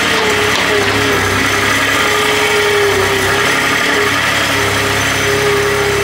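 Gehl skid-steer loader's engine running steadily, its note wavering slightly in pitch.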